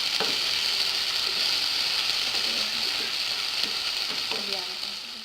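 Sambal spices and aromatics sizzling in hot oil in a pan as they are sautéed: a steady frying hiss that fades near the end.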